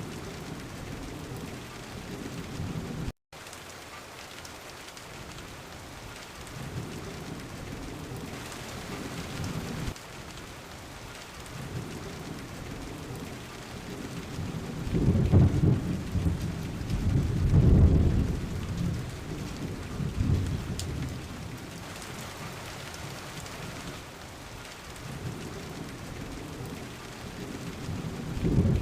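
Steady rain falling, with rolling thunder. The rumbles swell and fade several times, and the longest and loudest comes about halfway through. The sound drops out for an instant about three seconds in.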